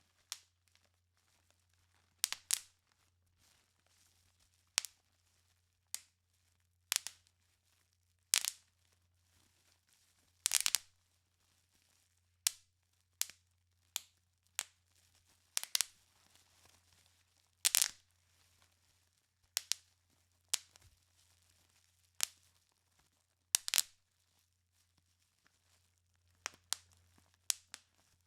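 Bubble wrap being popped one bubble at a time: sharp pops at irregular intervals, about one every second or two and some in quick pairs, with faint crinkling of the plastic between them.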